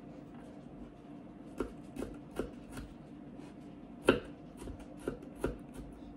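Kitchen knife chopping garlic on a cutting board: four even strokes about two and a half a second, a short pause, then five more.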